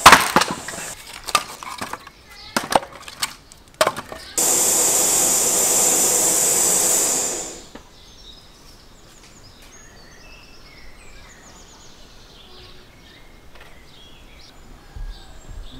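Several sharp knocks, then a loud steady hiss for about three seconds that fades away, followed by a quiet stretch with faint high chirps.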